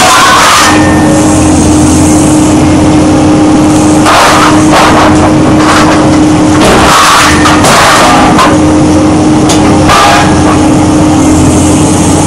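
Excavator diesel engine and hydraulics running steadily with a constant hum, while a hydraulic scrap shear grips and cuts steel bars, giving several loud metallic crashes and crunches.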